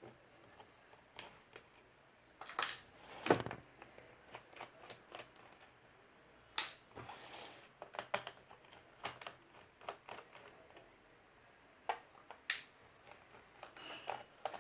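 Irregular small clicks, taps and light scrapes of hands handling computer hardware during an M.2 SSD install, with a brief high-pitched sound near the end.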